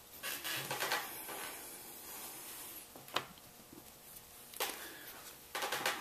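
Light metallic clicks and taps from handling a Smith & Wesson Model 29-2 revolver's exposed lockwork with the side plate off: a few separate clicks, then a quick cluster near the end.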